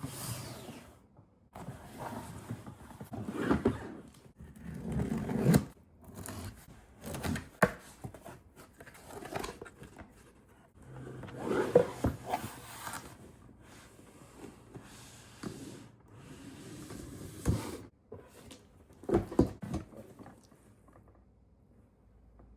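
Unboxing and handling of a solid-wood toy lockbox: packaging scraping and tearing, with irregular knocks and clicks of wooden parts being moved.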